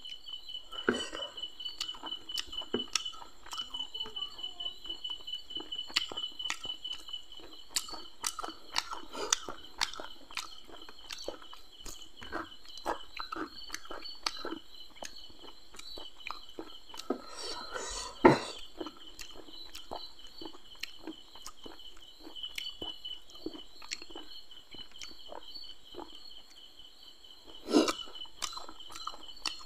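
Close-up eating sounds of a man eating fried masala fish with his fingers: wet chewing, lip smacks and small clicks, with a louder click or knock about 18 seconds in and another near the end. Crickets chirp steadily in the background.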